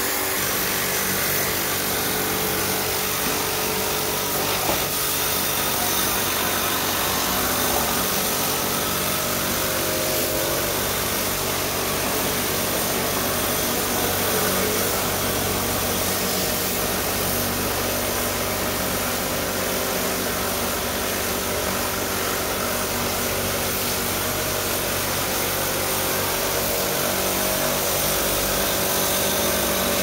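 Portable electric pressure washer running steadily, its jet spraying water onto the coil of a split air conditioner's indoor unit to clean it.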